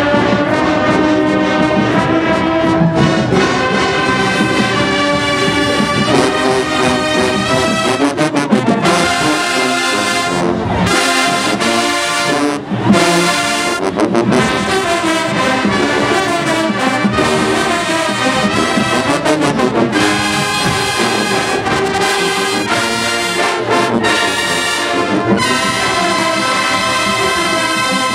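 Large marching band playing loudly in the stands, its brass section of trumpets, mellophones and sousaphones sounding full chords. The music dips briefly about twelve seconds in, then comes back on a sharp accented hit.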